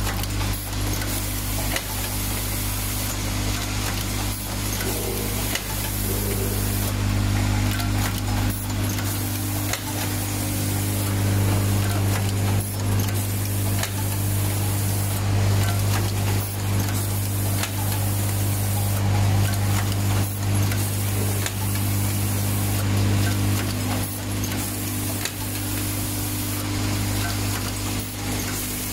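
Automatic wire cutting, stripping and crimping machine running: a steady machine hum under a hiss of compressed air, with frequent sharp clicks from its pneumatic actuators and crimping strokes.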